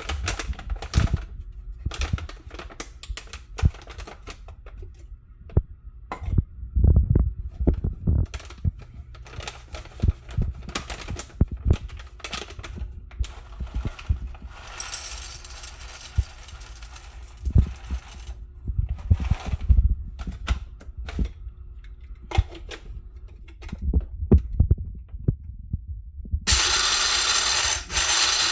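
Kitchen clatter while coffee is being made: irregular knocks, clicks and thumps of containers and utensils being handled and set down on counters. Near the end a loud, steady whirring rush starts and keeps going.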